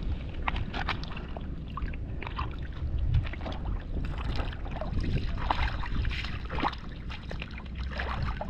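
River water splashing and sloshing in short irregular bursts, as hands and feet move through the shallows, over a steady low rumble of wind on the microphone.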